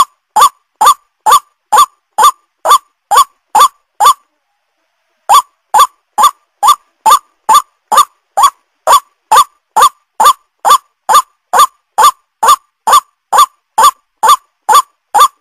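White-breasted waterhen (ruak-ruak) calling from a bird-lure recording: a loud short rising 'kwak' note repeated about twice a second. The notes break off for about a second a little after 4 s in, then go on.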